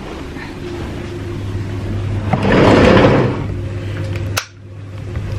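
Washing machine starting up with a steady electric hum. A rustling knock comes about two and a half seconds in, and a sharp click comes near the end.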